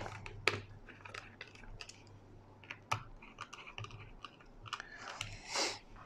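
Small Phillips screwdriver tightening the screws of a laptop's 2.5-inch drive caddy: faint, scattered small clicks and scratchy creaks as the driver turns and the screws seat, with a brief soft rustle near the end.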